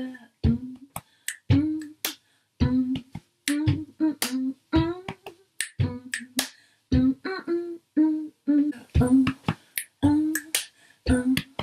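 Body percussion in a steady groove: foot stomps, chest pats and sharp finger snaps, with a woman singing short, wordless notes of a tune along with the beat.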